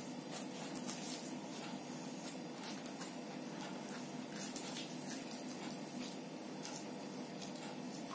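Eating sounds: chewing, and fried luchi being torn and pressed into potato curry by hand, heard as scattered soft ticks and squishes over a steady low room hum.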